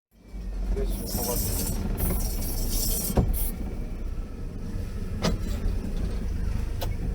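All-terrain vehicle engine running while driving off-road, a steady low rumble with rushes of hiss early on and a few sharp knocks.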